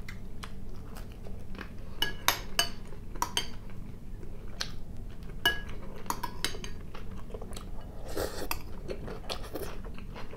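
A metal spoon clinking and scraping against a glass salad bowl in irregular sharp knocks, several ringing briefly, with chewing between them.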